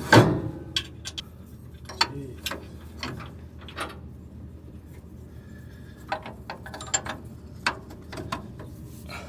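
Metal clanking and clicking from hand work on a combine's concave and its retaining pins. One loud clank comes right at the start, then scattered lighter ticks and knocks.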